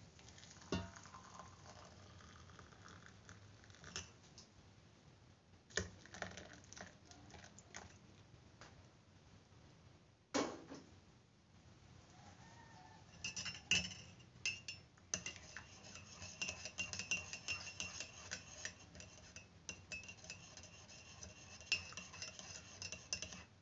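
A metal spoon clinking against a ceramic mug. A few separate knocks come in the first half, then quick repeated clinking with a ringing note runs through most of the second half, as when tea is stirred.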